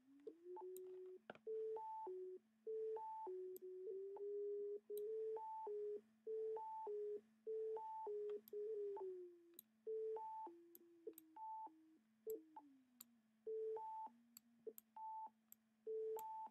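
Pure Data sine-wave oscillator (osc~) playing a looping four-note sequence, a new pitch about every 0.3 s: 220, 440 and 880 Hz plus a fourth note set by a slider, which glides up and down between about 220 and 440 Hz as the slider is dragged. Faint clicks where the notes change.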